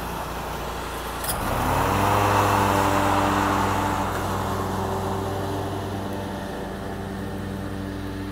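Stand-on lawn mower engine running. About a second and a half in, its pitch dips and climbs back up, with a brief click. It then runs steadily, slowly fading as the mower pulls away across the lawn.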